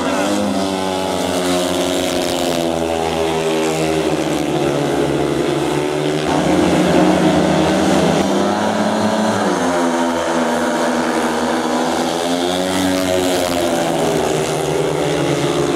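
Several speedway motorcycles' 500cc single-cylinder methanol engines running hard, the pitch rising and falling as the riders rev and back off.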